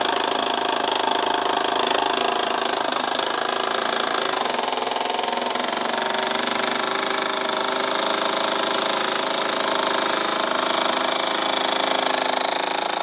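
Small steam engine of a Krick Anna model steam launch running fast and steady on its boiler's steam, a continuous rapid mechanical clatter: really pumping away.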